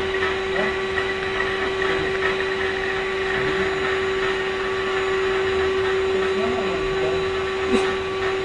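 Cordless vacuum cleaner running steadily: an even motor hum with a hiss of airflow. A short knock comes near the end.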